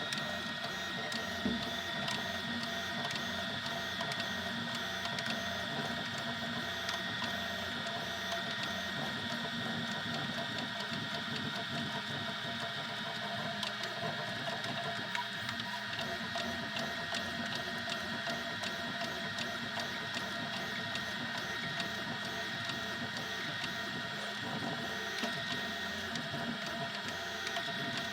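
Easythreed X2 3D printer running a print: its motors give a steady whine of several tones, with frequent small ticks as the print head moves.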